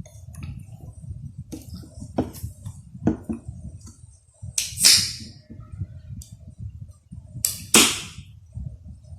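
Someone eating close to the microphone: chewing and mouth noises with small clicks, and two loud, hissy bursts about five and eight seconds in.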